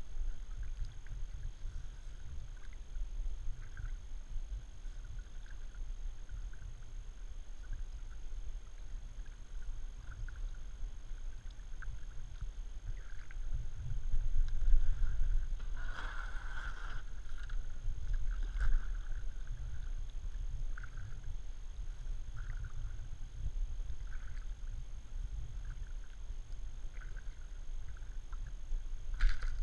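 Kayak paddle strokes on calm water: soft dips and drips about every second over a steady low rumble, with one louder swish about halfway through.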